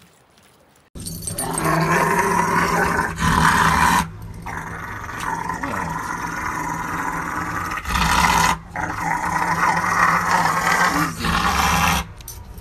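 A Rottweiler vocalising in long, rough growling howls with its head thrown back, in three long stretches with short breaks between them.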